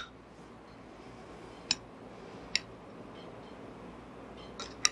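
A few light clinks of glass bowls and a spoon being handled on a table: one near the start, two more spaced about a second apart, and a quick pair near the end, over faint room hiss.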